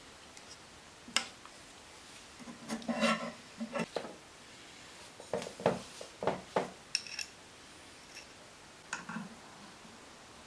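Irregular clicks, taps and short scraping as a wooden stick spreads black glue on a knife's handle scale and the knife and stick are set down and handled on a wooden workbench.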